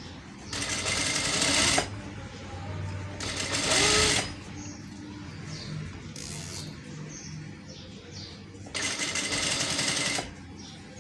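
Sewing machine stitching fabric in four short runs of about a second each, with pauses between them as the work is turned; the third run is the briefest.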